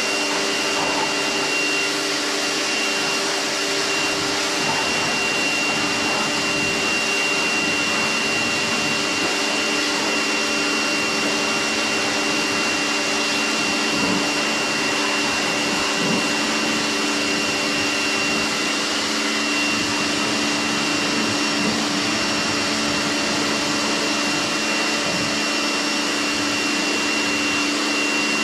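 Kärcher electric pressure washer running steadily, its motor and pump giving a constant whine under the hiss of the water jet spraying onto a motorcycle during the rinse.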